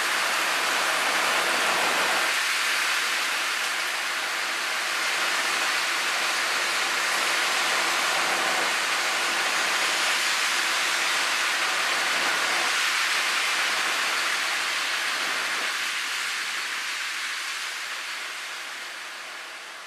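Hailstorm downpour: heavy rain and hail falling steadily as a dense, even hiss, fading out over the last few seconds.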